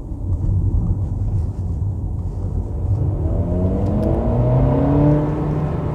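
Mercedes CLA220's 2-litre four-cylinder engine in comfort mode, running low and steady, then accelerating about three seconds in, its pitch rising steadily before levelling off near the end.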